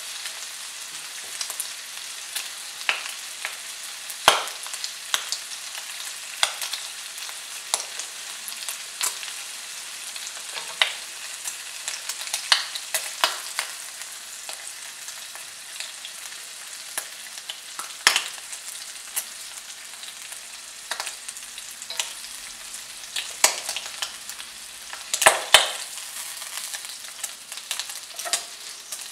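Thin bacon slices frying in a non-stick pan: a steady high sizzle with scattered sharp pops and crackles, a few of them louder.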